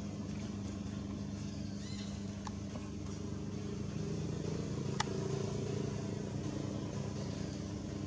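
Steady low drone of a motor vehicle engine running, swelling slightly from about four seconds in. A few brief high chirps about two seconds in and a sharp click about five seconds in.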